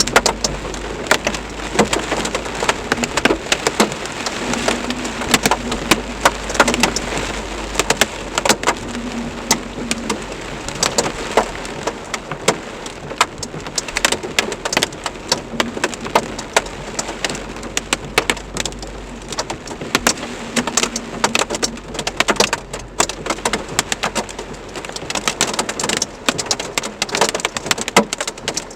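Heavy rain mixed with hail pelting surfaces: a steady downpour hiss full of dense, sharp, irregular hits.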